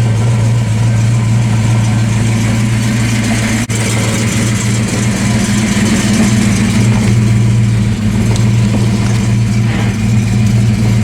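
A Fox-body Ford Mustang's 5.0 V8 idling steadily, running again after an accident once the fuel-pump inertia switch was reset.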